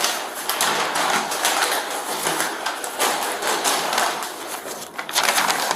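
Rustling and crackling of clothing being pulled off, with irregular handling noises.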